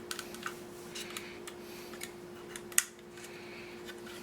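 Model-kit parts being handled: small clicks and light scraping, with one sharp click about three seconds in as a part seats into its slot without screws. A faint steady hum runs underneath.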